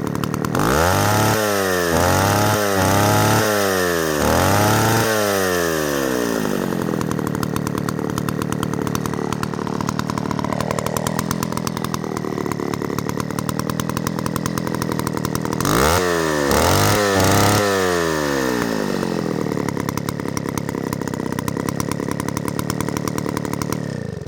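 Echo CS-60S Super two-stroke chainsaw running: blipped up to high revs four times in quick succession, settling back to idle, then revved three more times before being shut off, cutting out abruptly near the end. The owner says it probably does not run its best, because it is seldom run long enough to get the carburettor diaphragms good and wet.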